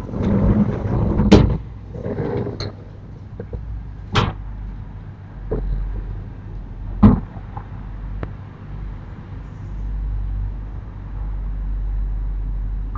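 Sliding storm shutters (amado) rattling along their track and shutting with a bang about a second and a half in. A few separate knocks follow over a low steady rumble.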